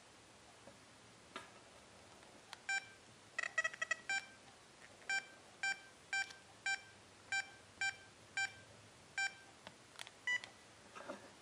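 XP Deus metal detector remote giving short electronic key beeps as its buttons are pressed to step through the search programs. The beeps come about two a second, with a quick flurry of several together about three and a half seconds in.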